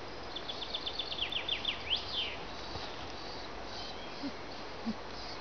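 A bird singing: a quick run of about a dozen short, high notes that turn into fast downward slurs, ending about two seconds in with one longer note that rises and falls, over a steady background hiss.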